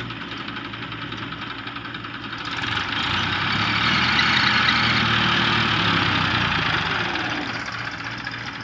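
Tractor diesel engines working under load to drag a tractor out of a mud pit. The hum grows louder about two and a half seconds in, then eases off near the end.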